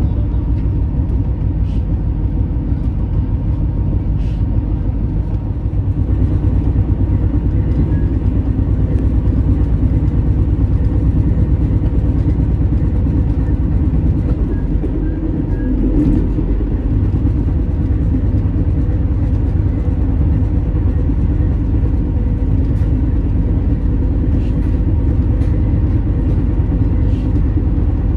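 Steady low rumble of a train, loud and continuous, with a faint steady hum above it.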